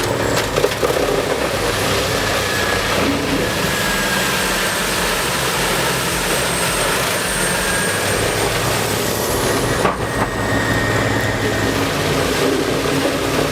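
Heavy wood-processing machinery running loud and steady: a big engine under load with wood being chewed up, and a steady high whine over it. A few knocks come near the start, and the sound dips briefly about ten seconds in.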